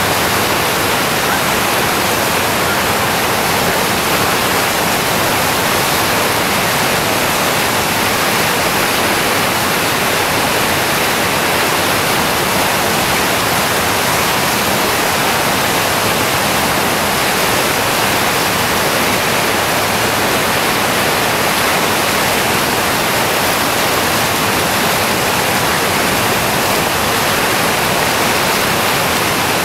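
Steady rushing of a whitewater rapid on the Chattooga River, water pouring over ledges and rocks.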